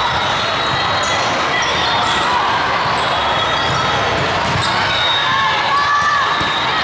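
Busy volleyball hall during a rally: the ball being struck, sneakers squeaking on the court and players calling, all over a steady echoing din from the many courts around.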